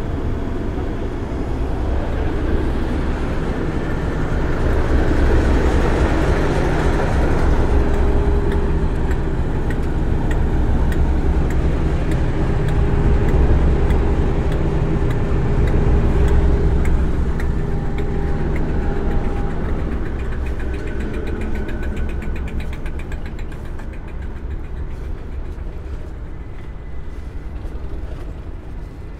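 Class 37 diesel locomotive's English Electric V12 engine running heavily, growing louder over the first half and then fading away, with a run of light rapid clicks in the second half.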